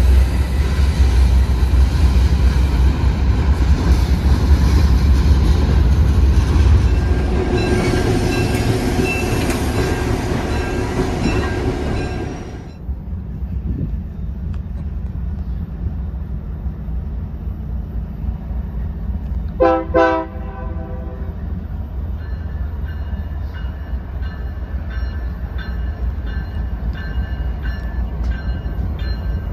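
Freight train's covered hopper cars rolling past close by, wheels rumbling on the rails, with steady ringing tones joining in the later part; then it drops suddenly to the quieter low rumble of an approaching BNSF diesel locomotive, which gives one short horn blast about twenty seconds in.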